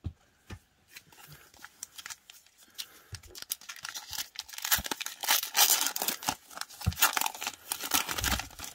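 A Magic: The Gathering booster pack's foil wrapper being torn open and crinkled in the hands: crackling, tearing sounds, sparse at first and louder and denser from about three seconds in.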